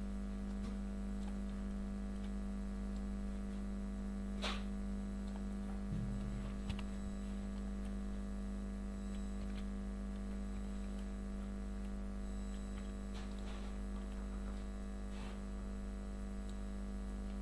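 Steady electrical hum, a constant buzzing drone, with a few faint clicks, the sharpest about four and a half seconds in.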